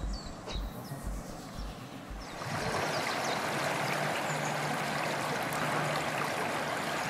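Soft footsteps on a paved path, about two a second, then from about two and a half seconds in a steady rush of shallow river water pouring over a rocky ledge.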